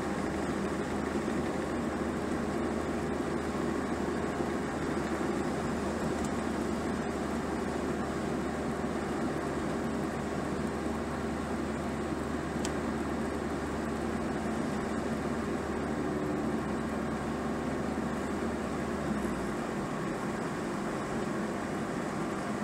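Car driving at steady speed, heard from inside the cabin: engine and tyre noise as an even hum. The deep low part of the hum drops away about nineteen seconds in, as the car nears a bend.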